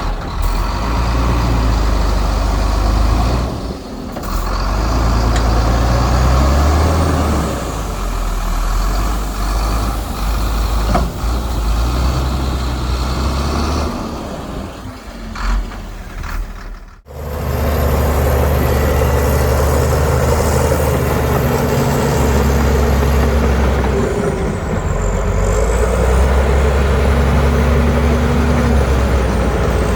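Heavy diesel earthmoving machinery running hard, a deep steady engine sound that cuts off abruptly about halfway through and picks straight up again.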